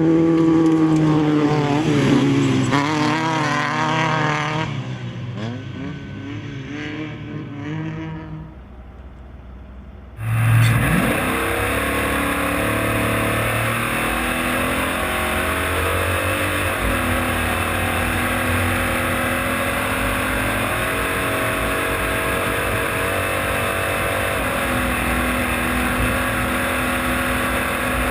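Drag-racing car engines. For the first few seconds an engine revs, its pitch rising and falling, then it fades away. About ten seconds in, a much louder, steady engine noise cuts in abruptly and holds to the end.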